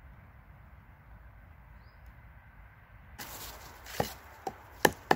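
A length of wooden log knocked against a snow-covered fallen trunk: four sharp wooden knocks in the last second and a half, over a rushing hiss.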